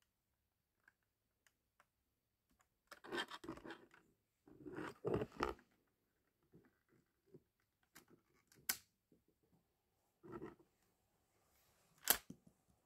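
Plastic LEGO parts of a model gun clattering and clicking as hands work its mechanism: two bursts of rattling, then scattered clicks, and two sharp snaps, the louder one near the end.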